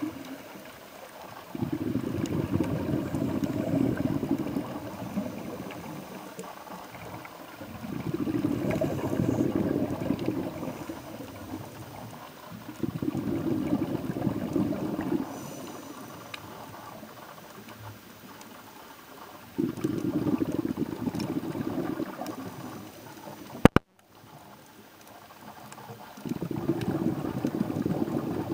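Underwater bubbling in regular bursts, each two to three seconds long and coming about every six seconds, the rhythm of a diver's exhaled breath bubbles. A single sharp click sounds about four-fifths of the way through, followed by a brief drop-out.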